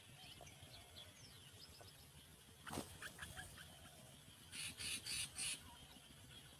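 Birds calling: faint short chirps over a low steady rumble, one sharp click about three seconds in, and four quick harsh calls a little past the middle.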